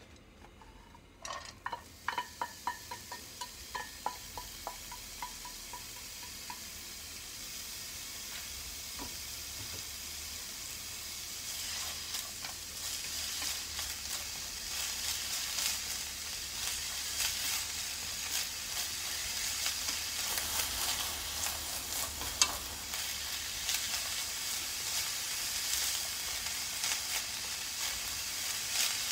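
Stainless steel bowl knocking and ringing against a frying pan in a string of taps that die away over about five seconds, as julienned burdock root is tipped into the hot oiled pan. Then the burdock sizzles while it is stirred, the frying growing steadily louder, with light clicks of the stirring and one sharp clack about 22 seconds in.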